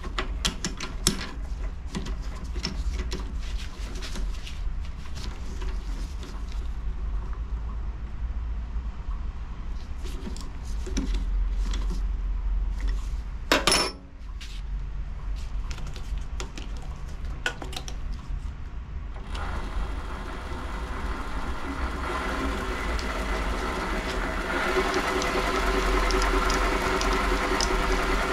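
Scattered clicks and knocks of a workpiece being fitted into a three-jaw lathe chuck, with one sharp, loud knock about halfway through. About two-thirds of the way in, the WM210V variable-speed bench lathe starts: a steady motor-and-gear hum that gets louder as the chuck spins up.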